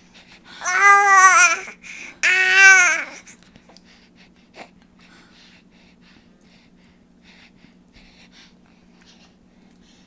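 An infant making two drawn-out, high-pitched vocal sounds in the first three seconds, each rising and then falling in pitch; afterwards only a faint steady low hum remains.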